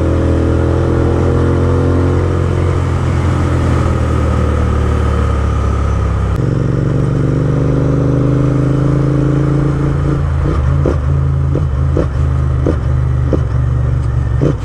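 Royal Enfield Interceptor 650's parallel-twin engine through loud Gursewak aftermarket exhausts, accelerating with a gear change about six seconds in. In the last few seconds the exhaust crackles with a string of sharp backfire pops, like firecrackers.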